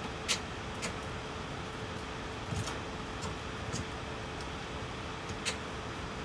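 A few sharp clicks and light taps from handling laptop parts and tools during a battery install, over a steady background hum.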